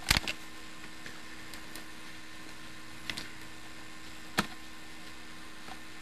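Steady low hum and hiss broken by a few sharp clicks: a cluster of clicks right at the start, a softer pair about three seconds in, and a single loud click about four and a half seconds in.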